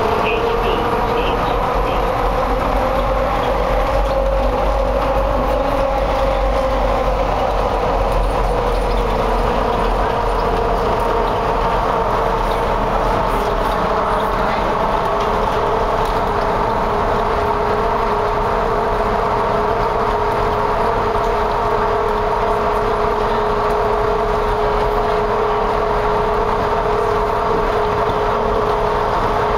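Dulles AeroTrain rubber-tyred people mover running through a tunnel, heard from inside the car: a deep rumble with a steady whine that climbs in pitch over the first five seconds or so as the train gathers speed, eases slightly, then holds level at cruising speed.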